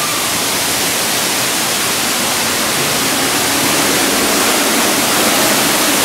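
Waterfall and stream rushing steadily, a loud even wash of water that grows slowly louder.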